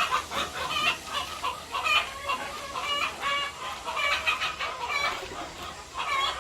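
A flock of laying hens clucking, with many short, overlapping calls coming irregularly throughout.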